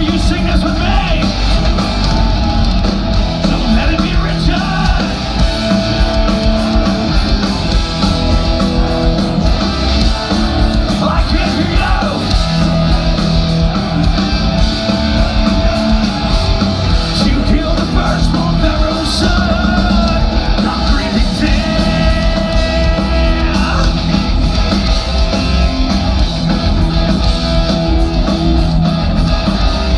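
Live heavy metal band playing loud: distorted electric guitars, bass and drums, with a singer shouting over the top. Heard from within the audience.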